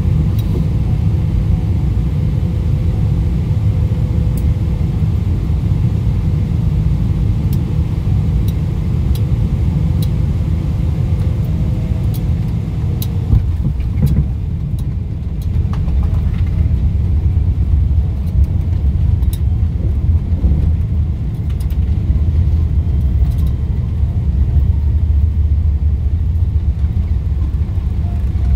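Airliner cabin noise on a landing approach: a loud, steady low rumble of engines and airflow with a faint steady hum in the first half. A few knocks come about halfway through, after which the low rumble grows stronger.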